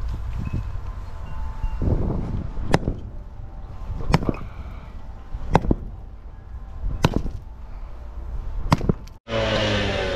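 Long-handled digging tool striking broken concrete and gravel: about five sharp, ringing blows, each roughly a second and a half apart. Near the end, after a short cut-out, a gas-powered concrete cut-off saw starts running, its engine pitch climbing.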